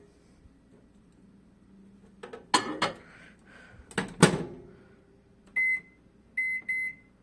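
Two clunks at a microwave oven about two and a half and four seconds in. Then come three short high keypad beeps, one and then two close together, as the cooking time is set.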